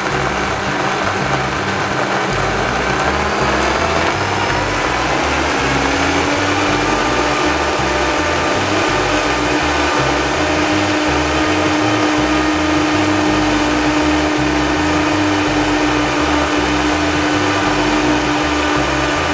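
Kitchen blender running steadily, grinding a thick adobo of dried chiles and garlic. Its motor pitch rises a little about five seconds in and then holds.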